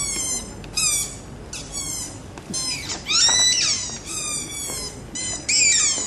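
Birds calling: a quick run of high, squawking calls that fall in pitch, loudest about three seconds in and again near the end.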